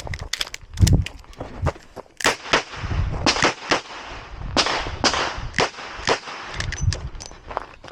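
Ruger GP100 Match Champion revolver firing .38 Special rounds during a stage run: a string of sharp shots at irregular spacing, some close together and some with pauses between.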